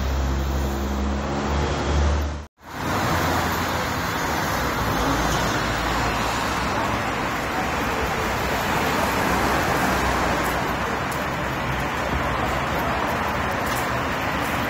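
Busy city street traffic: an even rumble and hiss of cars on the road. A low steady drone fills the first couple of seconds and cuts off in a brief dropout, after which the traffic noise carries on.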